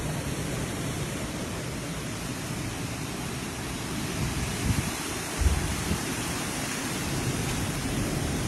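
Steady rush of heavy rain and wind from a severe thunderstorm, with two brief low thumps a little past the middle.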